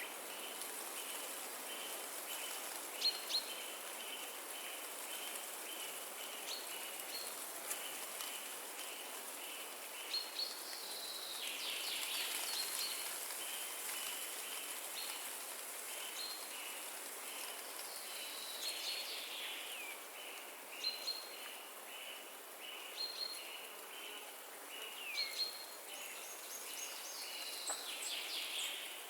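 Windy forest ambience: a steady rush of wind through the trees, with birds calling in short chirps and a few falling whistles, over a high pulsing note that repeats about twice a second.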